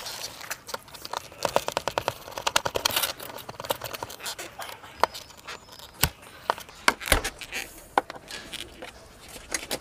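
Hands handling a motorcycle's front turn-signal indicator at its fairing mount: plastic clicks, scrapes and handling noise, with a fast run of evenly spaced clicks about a second and a half in and a few sharper knocks later.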